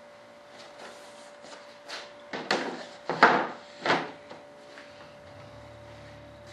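Fiberglass wing mold halves being pried and pulled apart. Three loud, sharp rubbing cracks come between about two and four seconds in, the middle one the loudest.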